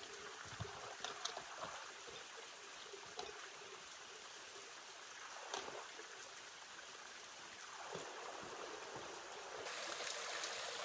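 Steady rush of flowing water, a little louder near the end, with a few faint scattered clicks.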